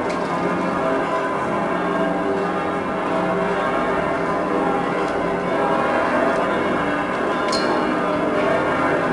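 The Frauenkirche's large church bells swinging and ringing together in a full peal, many overlapping tones sounding at once.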